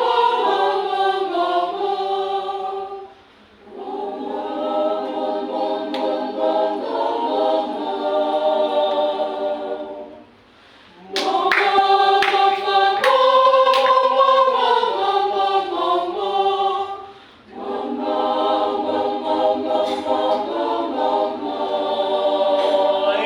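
Mixed choir singing a cappella, running a vocal warm-up exercise on "mo" in held chords that move step by step. It comes in four phrases, with short breaks after about 3 seconds, 10 seconds and 17 seconds.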